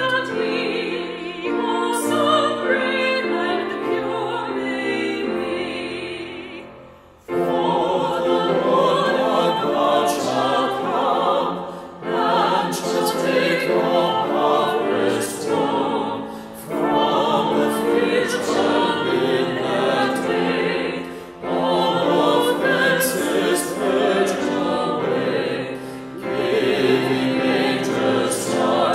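Small mixed choir singing a hymn with piano accompaniment. The first sung line fades away about six seconds in, and a new verse starts abruptly about a second later.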